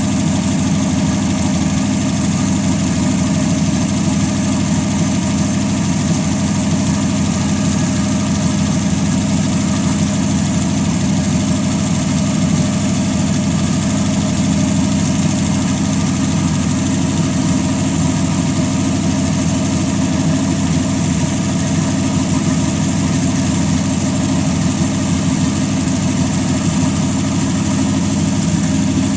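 A fuel-injected 320 cubic-inch Buick straight-eight racing engine idling steadily on its first run of the season.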